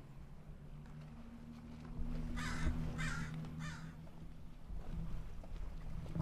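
Crow cawing three times in quick succession, over a low steady engine hum.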